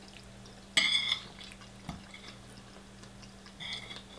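Metal spoon scraping and clinking against a ceramic plate while scooping up paella: a ringing scrape about a second in and a shorter one near the end, with a few faint small clicks between.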